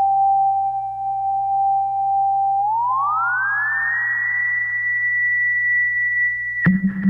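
Vintage-style electronic frequency-sweep effect with delay: a steady pure tone glides smoothly upward about three seconds in, echoes trailing the glide, and holds at a higher pitch. Near the end a sharp click cuts it and the tone drops abruptly to a low pitch, all over a faint low hum.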